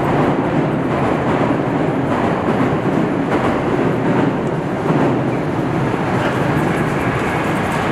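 A train running on nearby tracks, a steady loud noise with wheels clattering on the rails, heard over city street noise.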